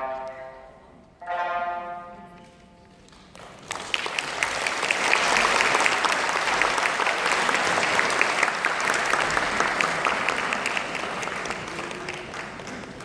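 The music's last two chords ring out and die away, then an audience breaks into applause about three and a half seconds in, which slowly fades toward the end.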